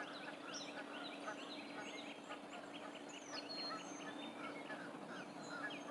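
Several birds singing at once: a dense mix of quick chirps, trills and short falling whistles, over a steady low hum.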